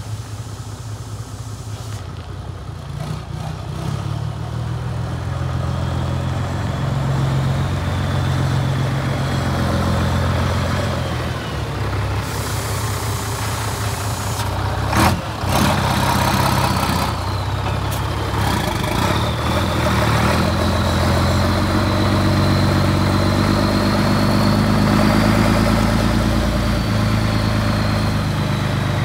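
Scania P92H six-wheel truck's six-cylinder diesel engine running as the truck drives off, turns and drives back past at low speed, growing louder as it comes closer. A single sharp knock sounds about halfway through, and a faint high whine rises and falls with the engine later on.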